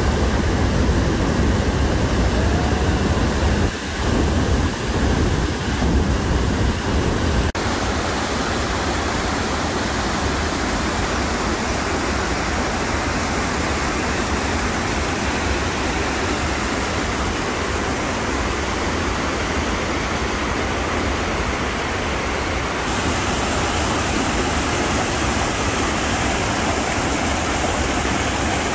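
Steady rush of Niagara Falls plunging just below, with a deep rumble. After a cut about seven seconds in comes a brighter, even rush of river rapids pouring over a rock ledge.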